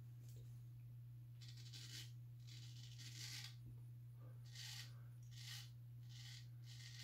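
Faint short scraping strokes of a Kloss 6/8 round-point straight razor cutting through lathered whiskers, about six strokes starting a second and a half in, over a steady low hum.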